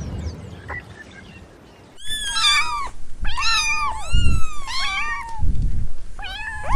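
A cat meowing repeatedly: about five high, rising-and-falling meows in quick succession, starting about two seconds in.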